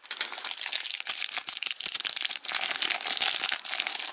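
Hockey card pack wrapper crinkling and crackling steadily as it is torn open by hand.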